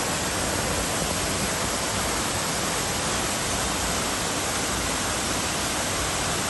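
Waterfall rushing in a steady, even wash of water noise.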